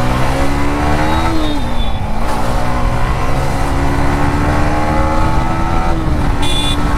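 A Yamaha 155 cc single-cylinder motorcycle engine at high revs through a loud aftermarket Akrapovic exhaust. Its pitch dips about two seconds in, climbs again, and falls once more near six seconds as the revs change.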